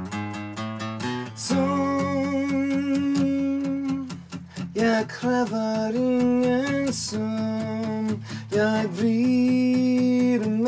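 Music: an acoustic guitar strummed and plucked under a voice singing long held notes.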